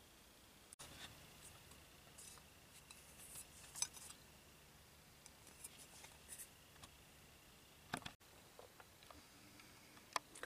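Near silence with a few faint clicks and rustles of hands handling a plastic package and a plastic wall plate.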